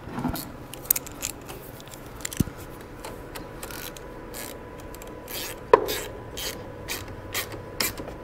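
Ratchet wrench clicking in a run of short strokes as the negative battery terminal clamp is tightened, with one louder metallic clink a little past halfway.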